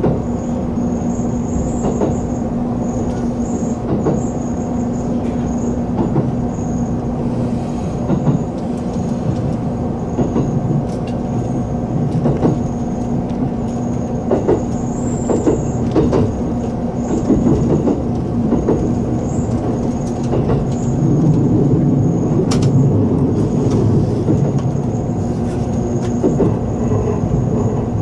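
A 783 series electric multiple unit running at speed, heard from inside the front car: a steady hum under a rumble of wheels on rail, with irregular clicks as the wheels pass rail joints, the rumble growing louder in the last third.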